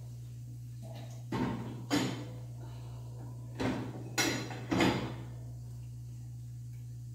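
Ceramic bowls knocking against the wire rack and steel plates as they are set into a dishwasher's lower rack: two clinks about a second in, then three more around the middle. A steady low hum runs underneath.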